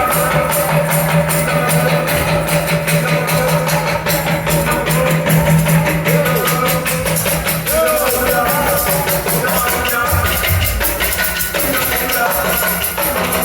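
Music from a festival performance: fast, dense percussion over a held bass note that drops out a little past halfway, with melodic lines and possibly a voice on top.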